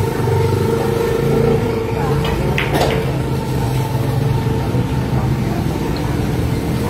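Steady low machine-like hum of a pool hall, with a sharp click a little under three seconds in, typical of pool balls striking.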